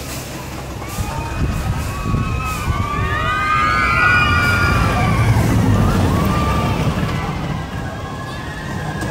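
Steel roller coaster train running past on its track with a low rumble while many riders scream together, the screams gliding up and down in pitch. Both are loudest about four to six seconds in, as the train passes close by.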